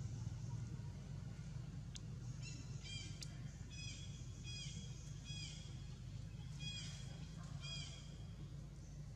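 A series of about seven short, high-pitched animal calls, each ending with a dip in pitch, starting a couple of seconds in and stopping near the end, over a steady low hum.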